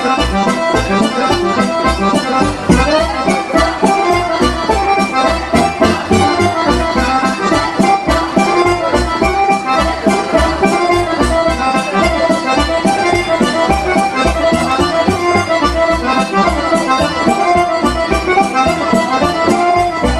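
Lively Serbian folk dance music with an accordion melody over a fast, even beat.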